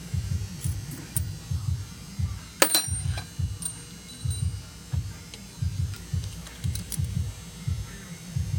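Metal lathe running, with a low rumble and uneven low thumps about two or three times a second. One sharp metallic click about two and a half seconds in.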